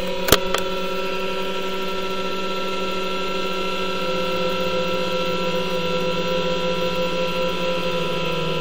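Green Fuel 2000 W 12-volt power inverter running just after start-up, giving a steady electrical hum and whine of several tones, with two sharp clicks near the start.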